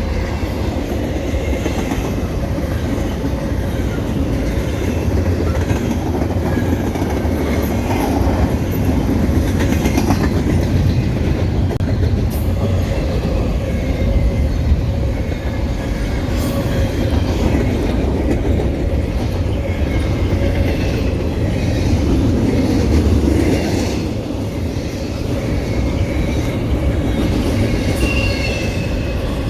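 Freight train cars rolling past: a steady rumble of steel wheels on rail, with clicks over the rail joints and faint wheel squeal.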